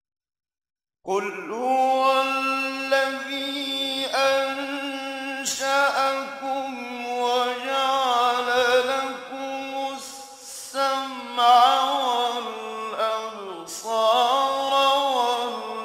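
A man reciting the Quran in Arabic in a slow melodic chant, starting about a second in, holding long steady notes with ornamented glides between them.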